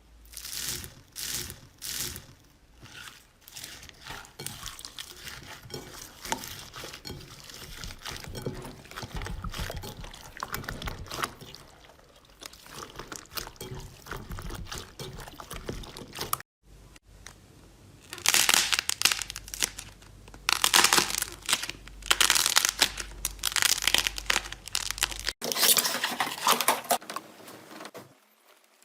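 Slime being handled and squeezed, a dense run of crinkling, crackling and crunching sounds in quick irregular strokes, loudest and most crackly in the last third. The sound breaks off sharply twice as one slime clip gives way to the next.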